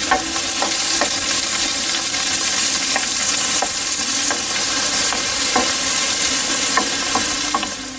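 Chopped spring onion sizzling steadily in hot oil in a metal pan, with occasional short scrapes and taps of a wooden spoon stirring it.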